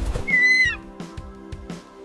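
Background music with a regular beat. About a third of a second in, a single short, high whistle-like call sounds over it, dipping in pitch as it ends.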